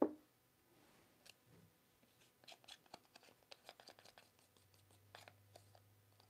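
Faint clicking and scraping of a stir stick against a small jar as thick acrylic paint is scraped out into a small plastic cup, after a short knock at the very start.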